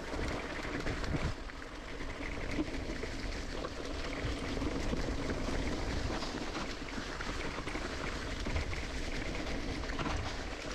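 Mountain bike rolling along a dirt singletrack trail: continuous tyre rumble and rattling of the bike over the ground, with steady low rumble that sounds like wind on the microphone.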